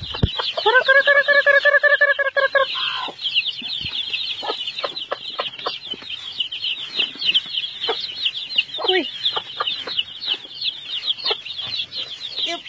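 A brood of Rhode Island Red chicks cheeping constantly and high-pitched, excited while scrambling for black soldier fly larvae. A mother hen gives one long, steady call in the first few seconds and a short cluck that falls in pitch about nine seconds in.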